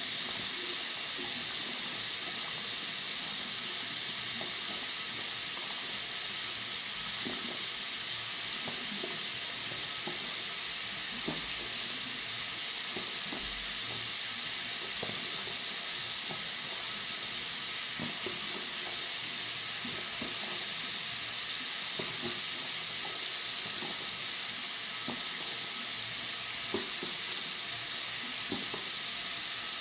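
Water running steadily from a bathroom sink tap: an even, fairly high-pitched hiss, with faint small splashes underneath.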